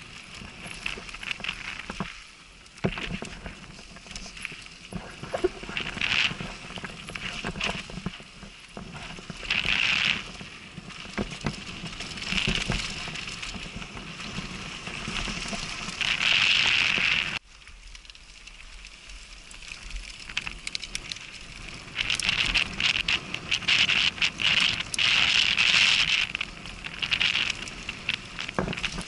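Downhill mountain bike ridden fast down a dirt trail, heard from a helmet camera: tyres running over loose dirt and gravel, with rattles and knocks over bumps and repeated hissing surges that come more often in the second half.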